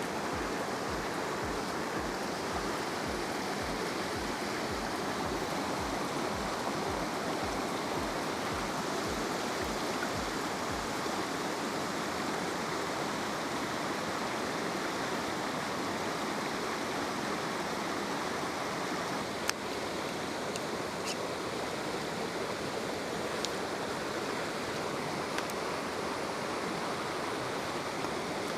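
Steady rush of a small waterfall and the brook flowing below it. A low regular pulsing is heard for the first ten seconds or so, and a few sharp clicks come in the second half.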